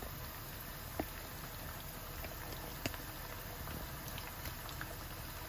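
Oil simmering in a wok with garlic and shrimp for gambas al ajillo: a steady soft sizzle with a couple of small pops, about a second in and just before three seconds.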